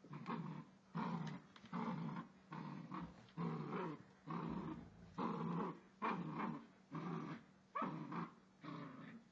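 Puppy growling in a run of short rough bursts, about one to two a second, as play-growling while tugging on a toy.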